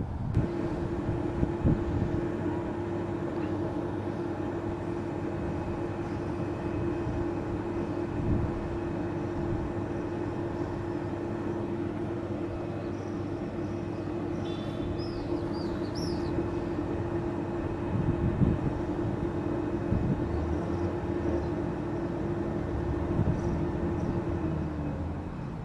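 A steady mechanical hum holding one pitch, over a broad rumbling noise with irregular low buffeting. A few faint high chirps come about halfway through, and the hum stops just before the end.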